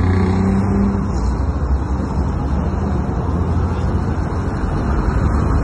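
Steady city street traffic noise: a continuous low rumble of car engines and passing traffic.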